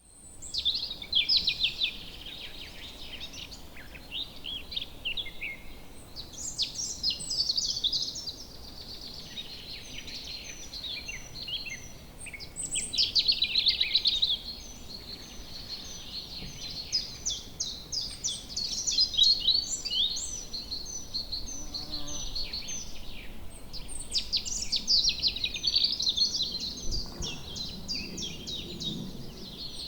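Songbirds singing: fast chirps, trills and warbles in overlapping phrases that go on throughout, with a faint low background hum.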